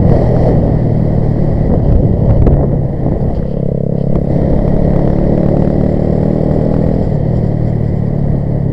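Grom-clone mini bike's small single-cylinder four-stroke engine running under throttle while being ridden, holding a fairly steady pitch and easing off briefly about three seconds in.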